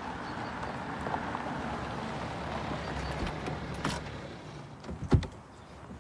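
A car running steadily, fading out, then a few clicks and a car door shutting with one loud thump about five seconds in.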